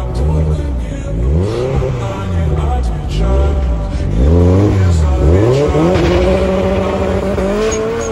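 Turbocharged VAZ 2107 engine revved hard in repeated blips, its pitch rising and falling about once a second. About six seconds in the revs are held higher and climb slowly.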